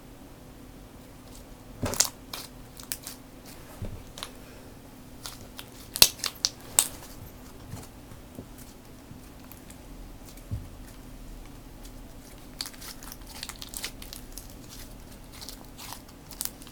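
Slime being played with and squished by hand: scattered sharp crackling clicks and pops, in three clusters about two, six and thirteen seconds in.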